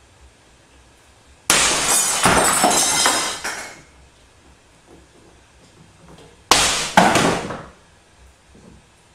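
Two sudden crashes of objects falling and breaking on the kitchen floor. The first comes about a second and a half in and clatters on for about two seconds; the second, shorter one comes about six and a half seconds in.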